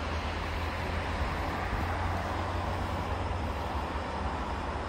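Steady hum of distant expressway traffic, an even wash of noise with a low rumble underneath.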